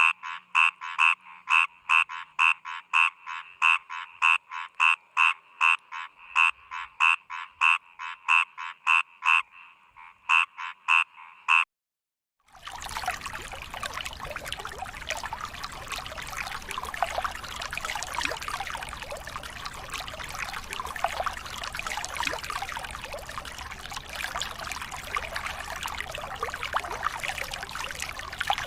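A frog calling in a steady run of croaks, about two a second, for the first dozen seconds. After a brief break, the sound of running water, like a trickling stream, takes over.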